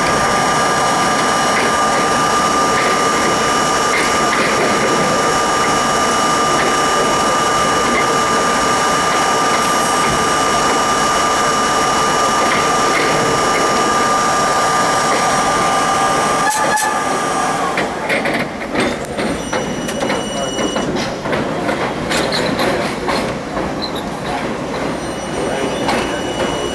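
R32 subway train running on the track: a steady rumble with a high, even whine over it. About 17 seconds in, the whine cuts out and the sound turns to rattling and clacking of wheels over rail joints as the train drifts on more quietly.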